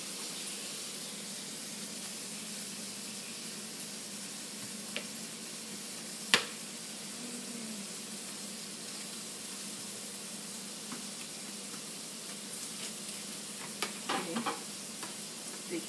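Steady sizzle of burger meat frying in a pan, with one sharp knock about six seconds in and a few light knife clicks on a plastic cutting board near the end.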